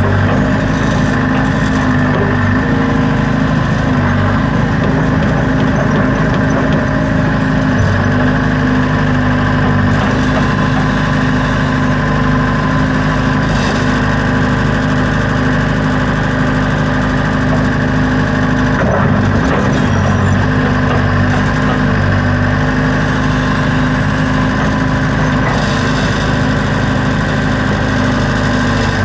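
Backhoe's diesel engine running steadily at working speed, its note shifting a few times, with a brief knock about two-thirds of the way through.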